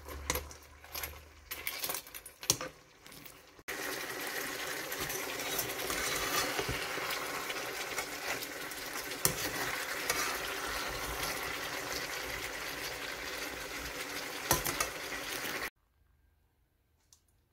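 A spatula clinking and scraping against a frying pan as crabs, shrimp and plantain are stirred, then a steady frying noise from the simmering sauce with occasional knocks of the spatula. It cuts off suddenly near the end.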